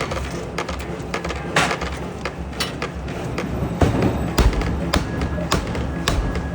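Background music with a steady low bed, cut through by irregular sharp knocks about once or twice a second.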